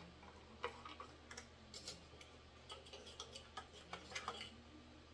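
Faint, irregular metal clicks and ticks of small socket-head bolts and a hex key being worked into a cooling-fan hub, fitted hand tight.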